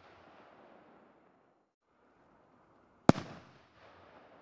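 A 3-inch aerial firework shell bursting with one sharp bang about three seconds in, its echo rolling away after it. Before it, the echo of the previous shell's burst fades out.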